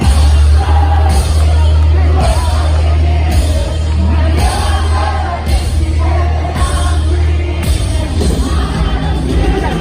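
Music with singing over a heavy, steady bass and a regular beat.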